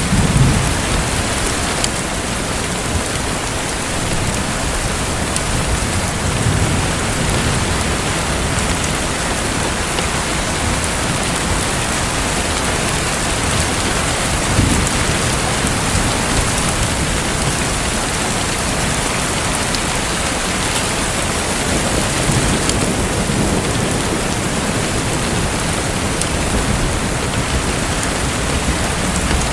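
Steady rain hissing, with a few low rolls of thunder swelling and fading now and then.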